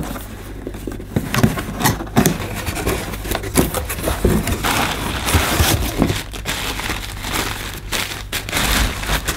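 Cardboard packaging being handled and white plastic wrapping crinkling as a wrapped part is lifted out of its box and unwrapped. Irregular rustling with scattered light knocks, the crinkling densest about halfway through and again near the end.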